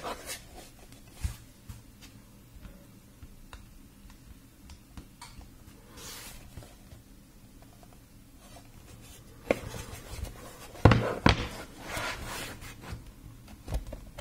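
Hands handling a hard plastic tool case: fingers rubbing and scratching over its textured surface with scattered light clicks. A louder cluster of clicks, knocks and rubbing comes about ten seconds in as the case is turned over and gripped.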